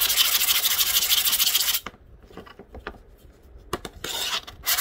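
A diamond plate scraped rapidly back and forth over a phone's glass screen, a gritty rasping that roughs the glass up into a sharpening surface. The scraping stops about two seconds in, leaves a quieter gap with a few light clicks, and starts again near the end.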